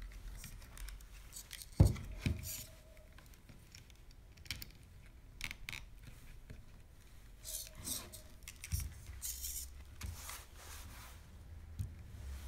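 Hands handling the plastic parts of a MeArm robot arm kit while threading a servo cable through them: scattered small clicks and rustles, with one sharp knock about two seconds in.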